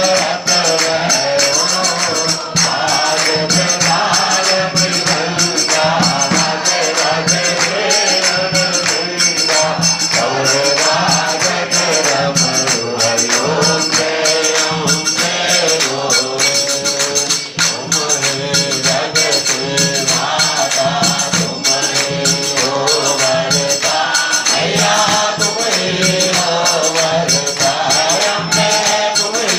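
Hindu aarti hymn sung into a microphone, over a fast, steady metallic jingling percussion beat that never stops.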